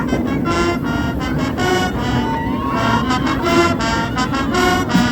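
Music with a regular pulse of repeated pitched notes, over a steady rumble of road traffic.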